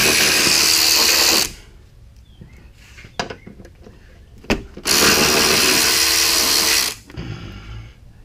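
A handheld power tool runs in two bursts of about two seconds each, with a steady whir, spinning out the bolts that hold the car's underbody panels. A few short clicks come between the bursts.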